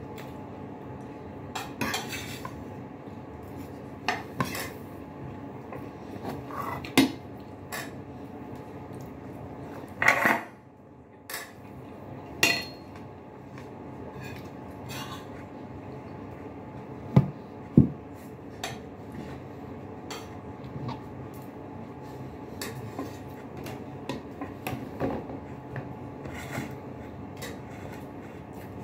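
Tableware at a meal: scattered clinks and knocks of a spoon and ceramic bowls and plates being handled, with two sharp knocks close together a little past the middle, over a steady low hum.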